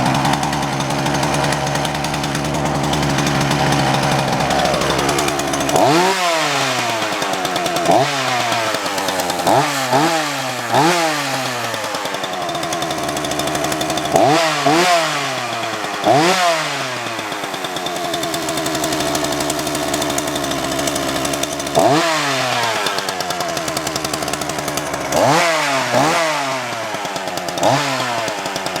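Ryobi RY3714 chainsaw's small two-stroke engine running without a chain fitted. It runs steadily at first, then from about six seconds in the throttle is blipped about a dozen times, the revs shooting up and falling back to idle each time.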